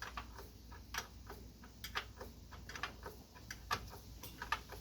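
Light metallic clicks at uneven intervals, a couple a second: a non-ratcheting wrench being repositioned on a bell housing bolt as it is turned in a little at a time.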